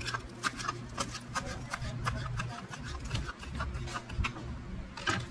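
Kitchen knife chopping celery on a wooden cutting board: quick, sharp knocks of the blade on the wood, about four a second, pausing briefly near the end.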